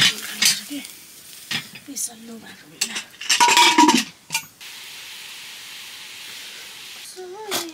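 Food sizzling in a hot pan while a metal spoon stirs and scrapes against it, with one loud scrape a little past three seconds in, followed by a steady sizzle.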